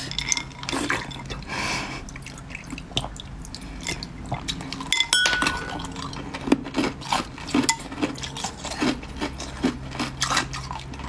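Pink ice block and frozen green balls clinking and knocking against a glass bowl as they are lifted out and handled, with meltwater dripping and trickling back into the bowl. One ringing glassy clink about five seconds in.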